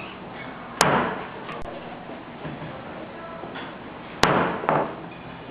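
Sharp wooden knocks of a spirit-writing phoenix-pen stick striking the divination table: one about a second in, then two close together near the end, each ringing briefly in the hall.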